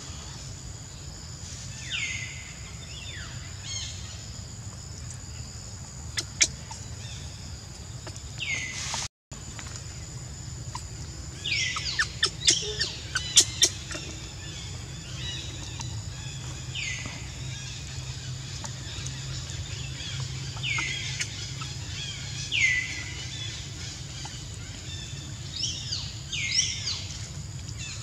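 Short high-pitched animal calls, each falling in pitch, repeated every few seconds. There are a few sharp clicks around the middle, over a steady low hum.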